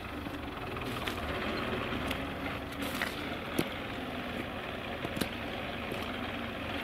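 Tractor engine running steadily nearby, a constant low hum, with a few scattered sharp clicks over it.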